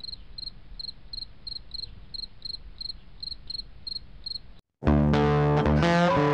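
Cricket chirping steadily, about three high chirps a second, which cuts off abruptly. After a brief silence, loud guitar music starts near the end.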